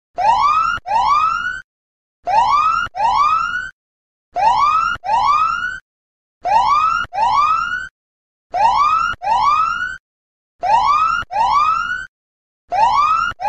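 Police siren sound effect signalling that the countdown's time is up: pairs of rising whoops, each climbing in pitch and cutting off sharply, with about one pair every two seconds and short silences between pairs.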